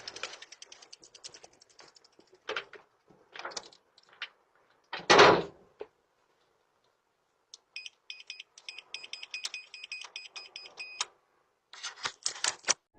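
Clicks and knocks at a door, with one loud thump about five seconds in. Then comes a run of short electronic beeps as keypad buttons are pressed one after another, someone trying to enter the security code on the door's keypad lock.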